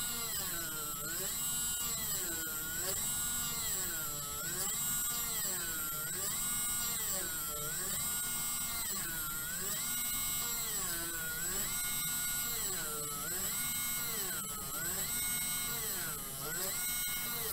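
Small 12 V BEF mini rotary tool drilling into wood with a fine bit, its motor whine dropping in pitch and recovering about every second and a half as the bit is pressed into the wood and eased off. The motor slows under the load.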